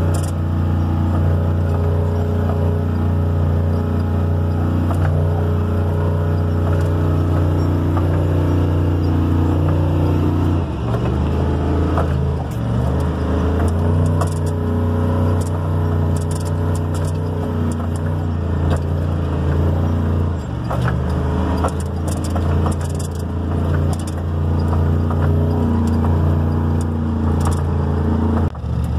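Engine of a vintage Ford F100 race truck, heard from inside the cab while driving fast on a dirt track. It holds a steady pitch, drops about ten seconds in, then rises and falls, with sharp clicks and rattles through the second half.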